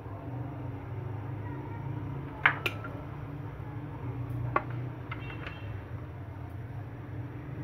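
A chef's knife and a metal apple corer clicking and tapping against a cutting board as they are handled and set down, with two loud clicks about two and a half seconds in and a few lighter ones later, over a steady low hum.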